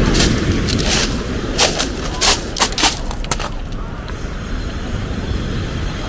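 Surf rushing steadily onto a pebble beach. About ten sharp crunches of pebbles under footsteps come in the first half, then only the surf.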